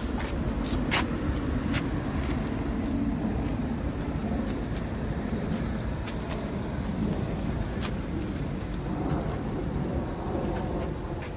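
Scania R450 truck's 13-litre six-cylinder diesel idling with a steady low rumble, with a few sharp irregular clicks over it.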